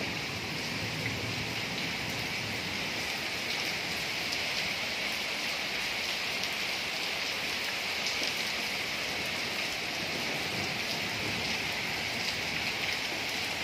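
Light rain falling steadily on a paved stone-tile courtyard: an even hiss with small scattered ticks of drops.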